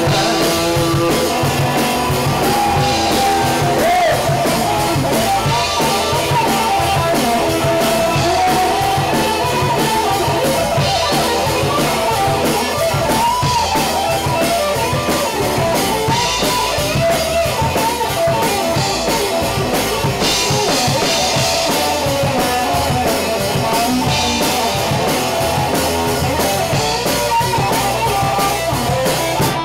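Live rock band playing loudly and without a break: drum kit, electric bass and electric guitar.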